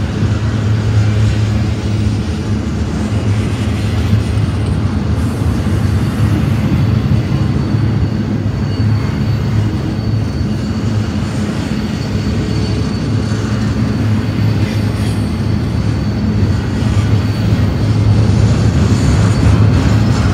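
Double-stack intermodal container train rolling past at close range: a loud, steady rumble of steel wheels on the rails. A faint thin wheel squeal rides over it for a few seconds in the middle.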